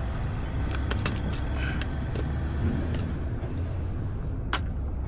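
Scattered sharp clicks and knocks of a hand tool working on metal parts of a Onewheel's wheel hub, the loudest about four and a half seconds in, over a steady low rumble.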